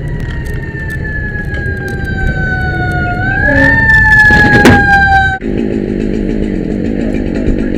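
Fire-truck siren winding down, its pitch falling slowly with a brief rise partway, over the rumble of the truck's engine, with a loud clatter near the middle. It cuts off abruptly, and a small engine runs steadily in its place.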